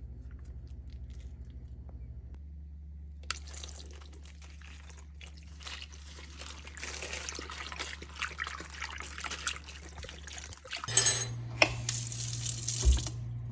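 Water running from a kitchen tap into a sink, then several loud knocks and clatters near the end, over a steady low hum.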